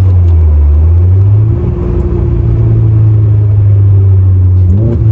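Turbocharged flat-four engine of a modified 2015 Subaru WRX, with aftermarket headers, J-pipe and cat-back exhaust, heard from inside the cabin while driving: a loud, steady low drone. The note dips briefly about a second and a half in, then picks back up, and a short rising note comes just before the end.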